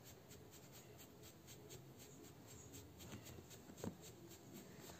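Near silence, with the faint, repeated scratching of a makeup brush rubbing blush onto the fabric cheek of a stuffed cat doll, and a small tick near the end.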